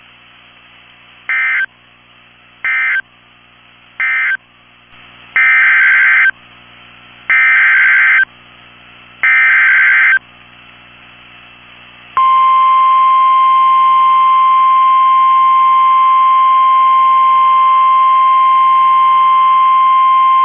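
NOAA Weather Radio Emergency Alert System tones. Three short screeching SAME data bursts mark the end of one warning, and three longer SAME header bursts encode the next one. About twelve seconds in, the steady 1050 Hz warning alarm tone begins.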